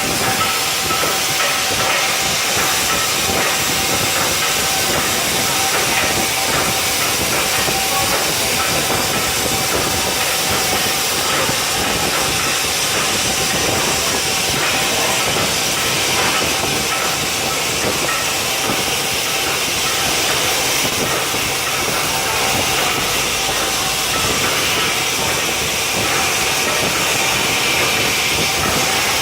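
CNC plasma cutter's torch cutting sheet metal: a loud, steady hiss with a faint constant whine underneath.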